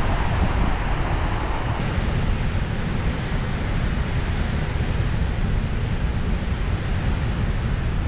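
Goðafoss waterfall rushing steadily, with wind buffeting the microphone.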